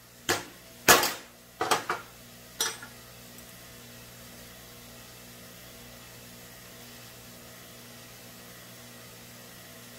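Ball-peen hammer striking a bent metal rod on a wooden block, about five sharp taps over the first three seconds, two of them in quick succession, to knock out the rod's high spot. A steady low hum continues after the taps stop.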